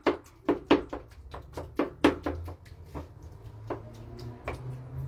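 A spoon tapping and scraping against an earthenware dish while food is mashed in it: short irregular clicks, about three a second.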